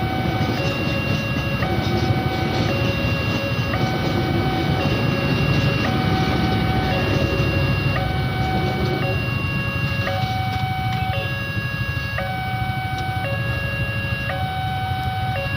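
Railway level-crossing warning siren sounding a loud electronic two-tone alarm, switching evenly back and forth between a higher and a lower tone, over a steady low rumble.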